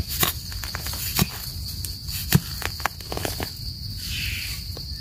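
A small metal trowel digging and scraping in soil and leaf litter: a run of short scrapes and knocks, the sharpest a little over one and two seconds in. A steady high insect drone runs underneath.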